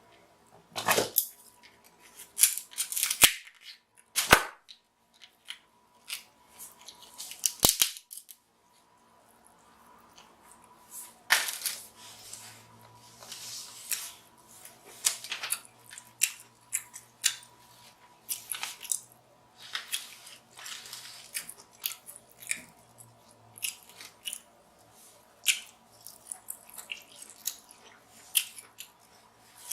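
Scissors snipping and cracking through king crab leg shells: a run of short, sharp, irregular clicks and cracks.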